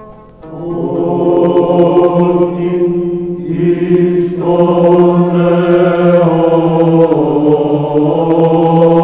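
Voices chanting a slow, Byzantine-style Orthodox hymn over a steady held drone note, coming in about half a second in.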